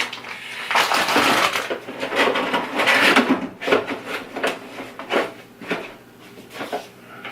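Graphics card packaging rustling and crinkling as the card is lifted out of its box and bag, in irregular bursts, followed by a few light clicks and knocks of handling.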